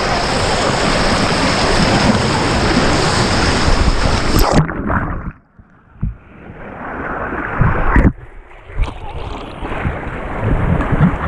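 Rushing water of a tube-ride river channel, with wind on the microphone. About four and a half seconds in the sound drops away suddenly, then comes back muffled and building, with a few sharp splashes.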